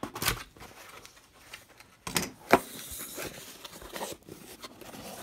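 Cardboard shipping box being opened by hand: tearing and rustling of the cardboard, with two sharp snaps about two seconds in.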